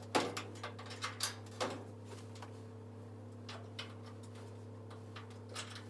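Clicks and light knocks of a dryer's sheet-metal panel being handled and fitted back into place, mostly in the first two seconds, then a few scattered ticks, over a steady low hum.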